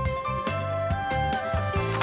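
Background instrumental music: sustained melody notes over a steady low beat, with a brief swish near the end.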